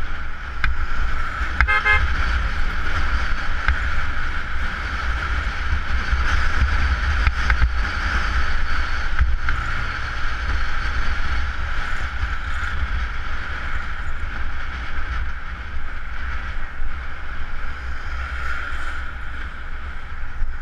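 Honda CBR motorcycle riding at road speed: steady engine and road noise under heavy wind rumble on the action camera's microphone. A short horn honk about two seconds in.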